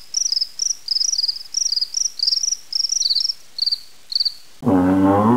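Crickets chirping: short, pulsed, high chirps in quick succession at two slightly different pitches, stopping about four seconds in. Near the end a loud, deep, drawn-out animal call begins.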